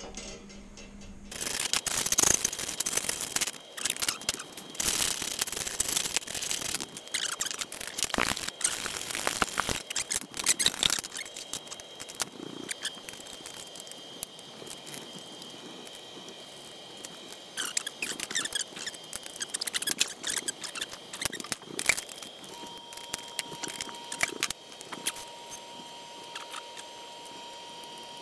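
Thin aluminium sheet-metal airbox being handled and fitted by hand over engine cylinders: rattling, scraping and clicking of the metal. The clicking is busiest in the first ten seconds and grows sparser after that.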